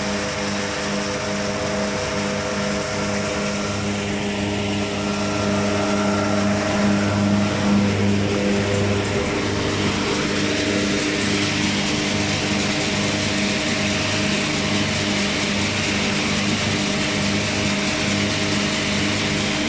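A tractor-driven Önal Makina corn sheller running steadily: an even machine hum made of several steady tones over a regular low throb, getting a little louder about six seconds in.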